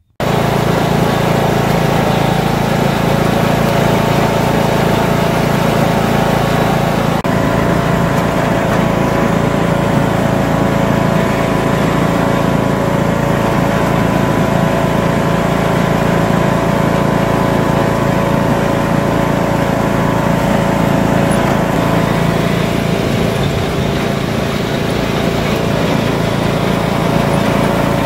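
Riding lawn tractor's engine running steadily as the tractor is driven.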